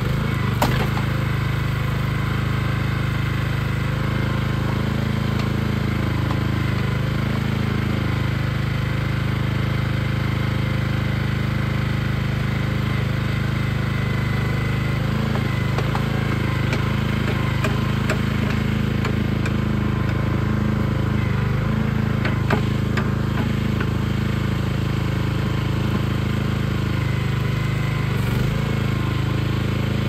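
Small gasoline engine of a Central Machinery towable backhoe running steadily while its hydraulics work the digging arm. Two sharp knocks stand out, one just after the start and one about three-quarters of the way through.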